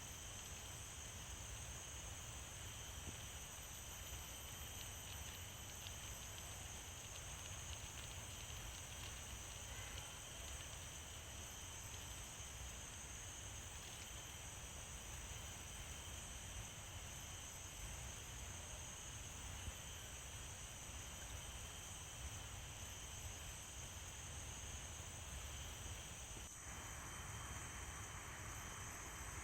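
A faint, steady chorus of night insects, several unbroken high-pitched trills holding on together over a low rumble. The mix shifts slightly near the end.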